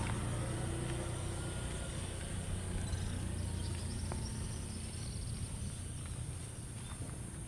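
A vehicle engine's low rumble, slowly fading, with a steady high insect drone above it and a few faint chirps in the middle.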